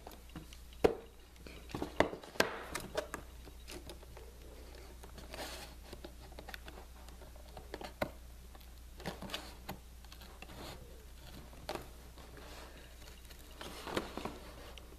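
Scissors cutting through a cardboard box: irregular snips and clicks of the blades with scraping of the card, a little louder near the start and again near the end.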